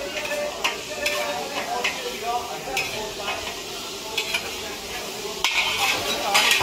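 Chopsticks and metal utensils clinking against stainless steel bowls as noodles are tossed, over the sizzle of frying. The sizzle and clatter get louder and denser about five and a half seconds in.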